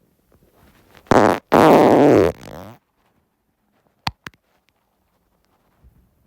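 A person farting: a short blast about a second in, then a longer, loud one with a wavering pitch that trails off. Two sharp clicks follow near the middle.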